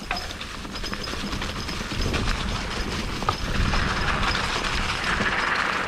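Mountain bike rolling over a rough dirt trail: tyres on the ground and a fast rattling of the bike, with a hiss that grows louder from about halfway through.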